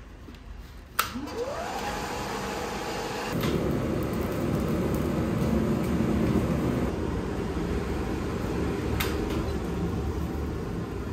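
Electric blower on a charcoal forge switched on with a click about a second in, its motor whine rising and settling to a steady pitch, then a loud steady rush of air blowing through the burning charcoal as the fire flares.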